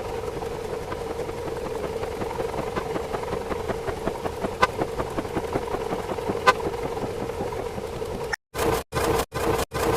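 Steady engine-like droning sound effect with a couple of sharp clicks; about eight seconds in it starts cutting on and off in rapid chops, about three a second.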